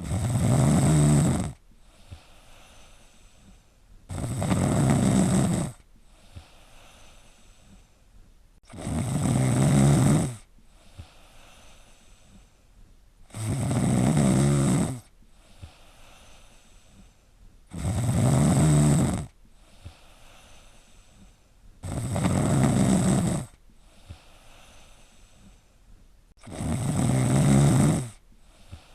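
A person snoring: seven loud snores about every four and a half seconds, each lasting about a second and a half, with faint breaths between.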